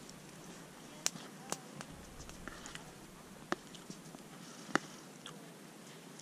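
A person chewing a mouthful of food close to the microphone, with a few small sharp clicks, the loudest near the end.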